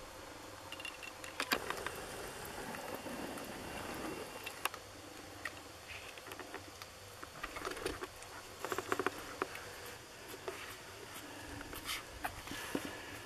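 Six-day-old Lagotto Romagnolo puppies nursing and squirming, making soft, scattered smacking clicks and small squeaks. The sounds come in little clusters about a second in, about two thirds of the way through, and near the end.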